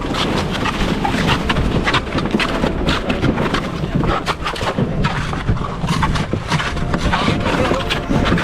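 Wind buffeting the microphone, with many irregular knocks and thumps.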